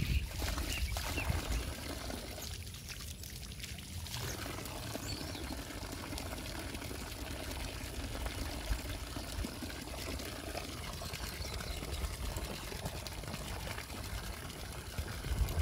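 Water pouring and trickling steadily, with wind rumbling on the microphone.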